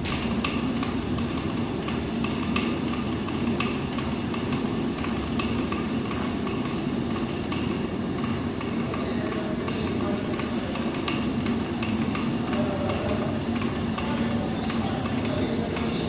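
Water-driven stone flour mill (panchakki) running: the millstone turning with a steady rumbling grind, dotted with irregular light clicks.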